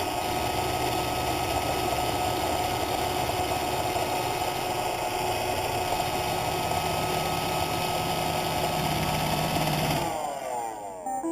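Roomba robot vacuum running: a steady motor hum and whine with the brushes and suction fan going, which winds down with a falling pitch about ten seconds in as the robot shuts off.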